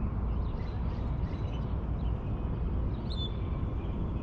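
Small birds chirping, short high calls scattered throughout with a clearer whistled note about three seconds in, over a steady low background rumble.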